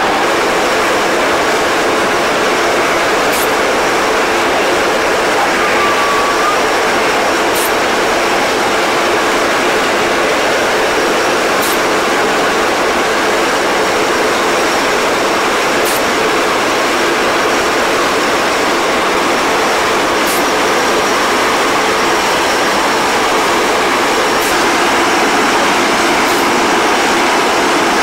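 Steady loud roar of aircraft engine noise on an airport ramp, with a constant hum and a faint high whine running under it.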